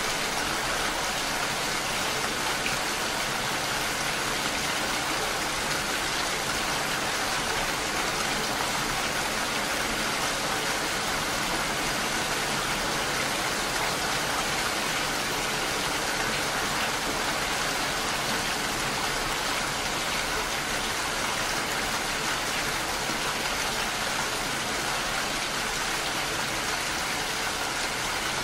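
Steady rain falling, an even unbroken hiss that does not change.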